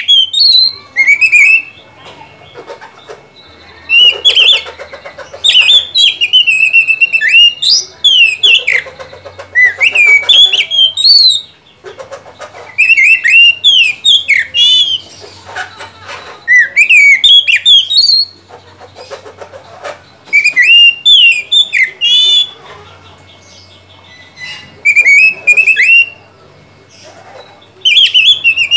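Oriental magpie-robin (kacer) singing loudly in whistled phrases of one to three seconds, with rising and falling notes and fast, very high chatter. The phrases come again and again with short pauses between them: full, steady song.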